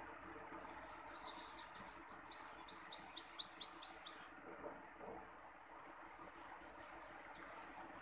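Songbird singing: a short twittering phrase, then a quick run of about eight rising high notes, and a few faint notes near the end.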